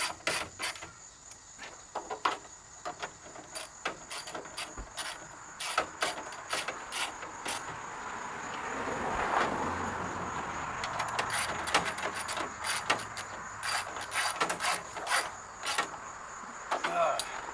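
Hand ratchet on an extension clicking in short bursts as fender mounting bolts are snugged down, with a rushing noise that swells and fades in the middle.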